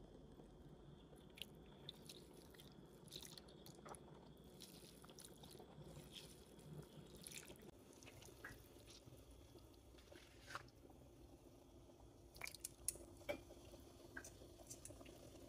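Near silence with faint, scattered clicks and small wet handling sounds from metal tongs and food being moved in water and broth. A few slightly louder clicks come about two-thirds of the way through.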